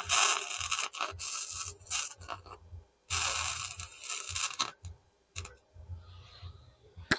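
Electric arc welder crackling and sizzling in two runs of welding, the first about two and a half seconds long and the second about a second and a half, followed by a few short clicks.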